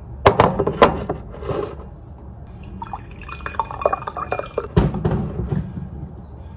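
Water pouring and dripping, with sharp knocks or clatters near the start and again just before the end.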